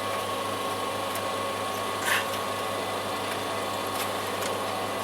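A steady mechanical hum with a few light clicks and a clink about two seconds in, from hand tools and bolts being worked on the chipper's housing.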